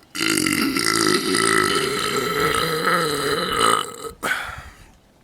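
A man's long, loud belch that lasts nearly four seconds and wavers in pitch, followed by a short second burst just after it stops.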